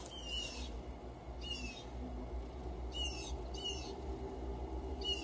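A songbird calling several times, a second or more apart, each call a quick, high run of notes sliding downward. A low, steady rumble lies underneath.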